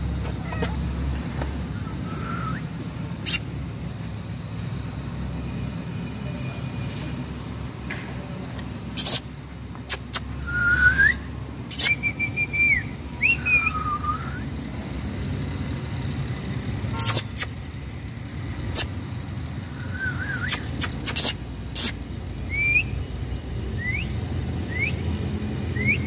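Steady low rumble of road traffic, with scattered sharp clicks and a series of short whistled chirps and glides, several of them rising, especially in the second half.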